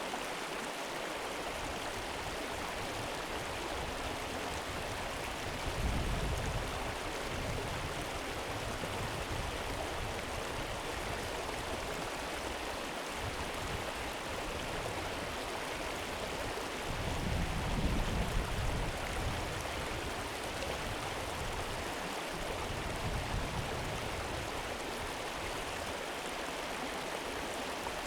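River water running steadily, an even rushing hiss. Two brief low rumbles come through, about six seconds in and again around two-thirds of the way through.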